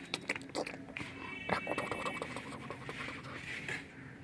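A cat eating from its food bowl: small irregular clicks, crunches and lapping-like ticks.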